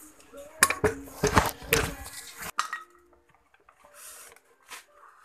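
Metal engine parts and tools clanking and clinking as a Yamaha V80 two-stroke engine is handled during teardown, with a run of sharp knocks in the first two and a half seconds, then only faint handling sounds.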